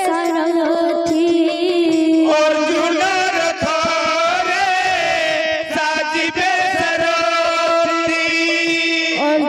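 Kirtan music: a voice holding long, wavering notes over a steady drone, with barrel drums beaten in a quick rhythm underneath.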